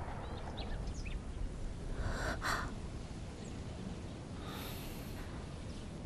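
Quiet outdoor background after a pistol shot, with a few faint bird chirps in the first second and two short breath-like puffs, one about two seconds in and one near five seconds.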